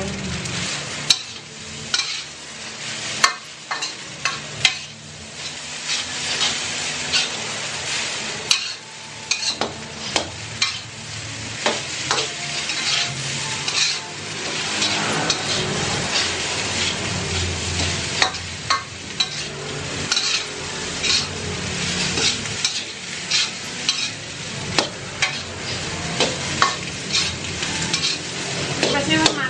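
Fried rice sizzling in a metal wok while a metal spatula stirs it, scraping and clacking against the pan many times.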